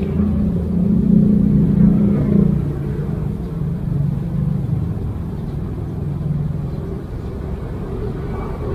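A motor vehicle engine running nearby with a low, pitched hum, loudest about one to two seconds in and then easing off.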